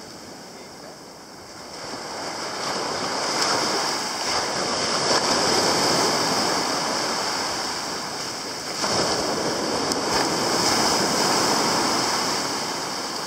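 Sea waves breaking and washing up a sandy beach. The surf swells twice, first building over the first few seconds and then again about two-thirds of the way through.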